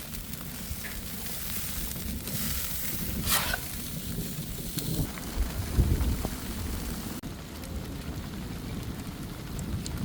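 Steady hiss of rain falling together with burgers sizzling on the grill, under a low rumble that swells about halfway through. The hiss thins out about seven seconds in.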